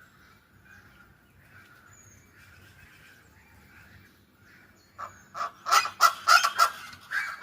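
Domestic fowl calling: faint calls at first, then about five seconds in a flock breaks into loud, rapid repeated calls, several a second.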